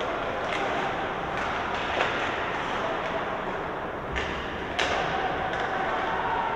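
Ice hockey rink game sounds: a steady hall-wide noise with faint distant voices, broken by a few sharp knocks of sticks, puck and boards, the loudest about two and five seconds in.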